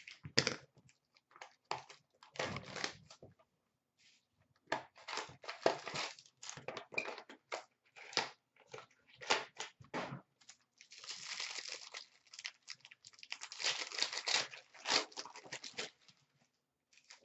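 Hockey card boxes and packs being torn open by hand: repeated short tearing and rustling of wrapper and cardboard, with longer spells of crinkling about two-thirds of the way through as the wrapping is pulled off and the cards handled.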